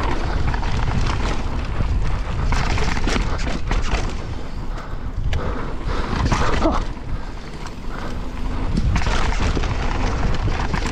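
Mountain bike riding down a dirt trail: tyres rolling over packed dirt and roots and the bike rattling over bumps, over a steady low rumble of wind on the camera's microphone. The noise eases for a moment twice around the middle.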